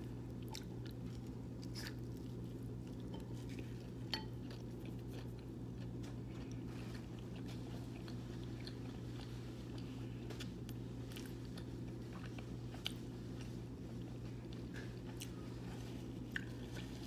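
A person chewing and biting a slice of pizza close to the microphone, with many small wet mouth clicks over a steady low hum.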